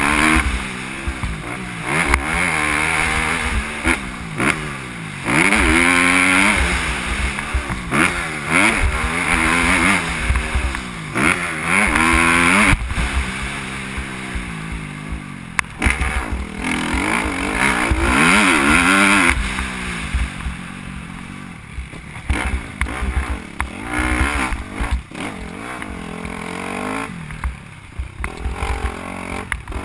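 Motocross dirt bike engine heard from on board, revving hard and falling back over and over as the bike accelerates, changes gear and backs off around a dirt track.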